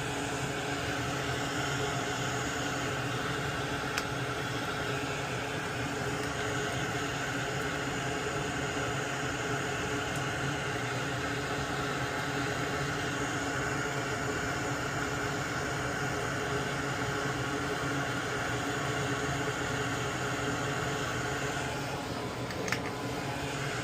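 Small electric fan or blower motor running steadily, a constant airy whir with a low hum, with a few faint clicks from the bench work.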